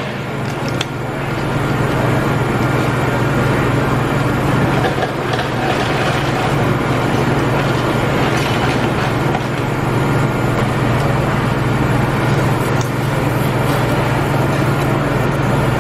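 Steady restaurant background noise: a loud low hum under a constant rushing hiss, with no clear single event.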